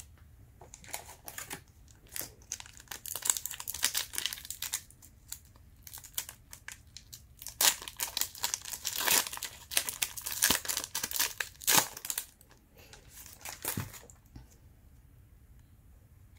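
Trading-card pack wrapper crinkling and being torn open by hand, an irregular run of crackles and rips that stops about two seconds before the end.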